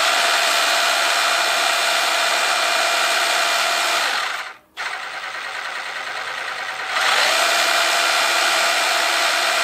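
Brushless 18V cordless SDS-Plus rotary hammer running with a 1/4-inch hex-shank drill bit in an SDS-Plus bit adapter, which lets the bit wobble a little: a steady motor whine. It stops briefly about four and a half seconds in, comes back quieter, then runs louder again from about seven seconds in.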